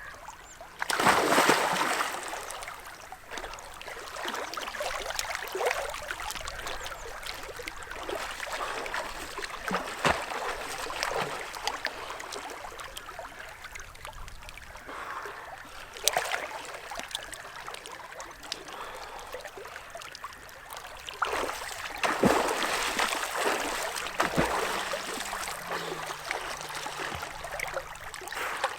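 Lake water splashing and sloshing as a person swims, with louder splashes about a second in, briefly around sixteen seconds, and again from about twenty-two seconds.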